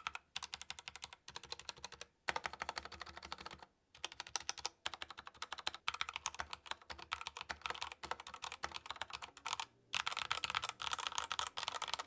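Typing on an LTC NB681 Nimbleback mechanical keyboard with its stock Otemu switches, stabilizers and keycaps: a fast, steady run of key clicks and clacks, broken by a few brief pauses.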